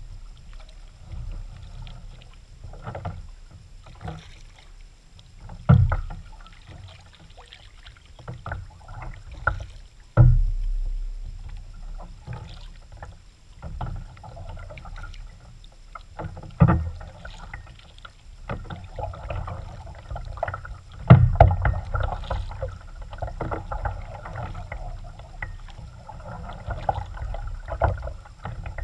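Kayak paddling: paddle blades dipping, splashing and dripping in the water, with several sudden loud thumps along the way.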